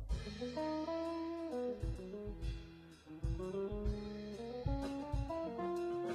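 Jazz-fusion band playing live: an electric guitar plays a stepped single-note melody over electric bass and a drum kit, with kick-drum hits and cymbal strokes.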